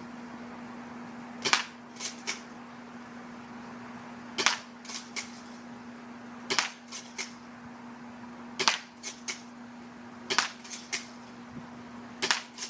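Toy airsoft shotgun firing six shots about two seconds apart, each a sharp snap followed by a couple of lighter clicks.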